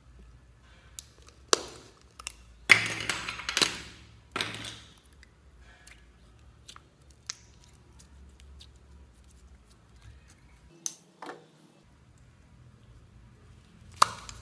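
Slime being mixed and worked by hand, making sticky crackles and pops. The crackles come in a cluster in the first few seconds, followed by scattered small clicks and one sharp pop near the end.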